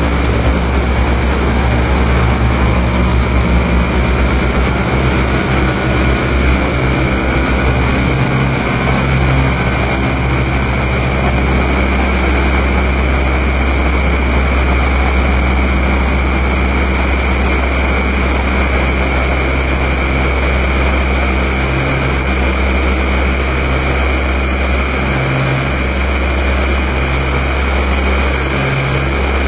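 Live electronic noise music: a loud, dense wall of hiss and drone over a deep, steady low rumble. From about two-thirds of the way through, a low tone pulses on and off roughly every second or so.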